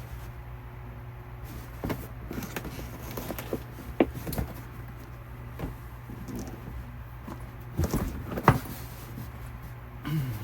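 A duffel bag being handled: scattered light clicks and knocks, the loudest near the end, over a steady low hum.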